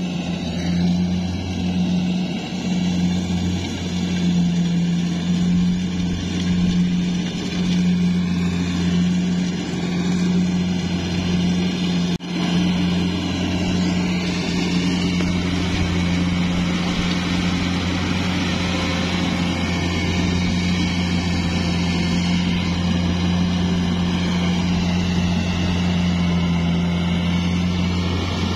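Kubota DC70 Plus combine harvester's diesel engine running steadily under load while harvesting rice, with a constant low hum. The sound drops out for an instant about twelve seconds in.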